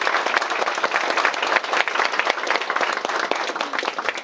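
Audience applauding: many hands clapping together in a dense patter that begins to die away at the very end.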